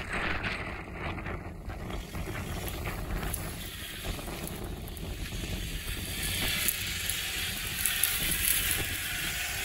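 Toyota Land Cruiser KDJ 120's 3.0-litre turbodiesel engine pulling the truck up a muddy sand slope, growing louder from about six seconds in as it comes closer, with wind noise on the microphone.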